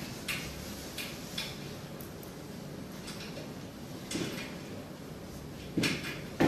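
Scattered small clicks and light rustles of hands fitting a part onto a laser machine's articulated arm, with a couple of sharper knocks near the end.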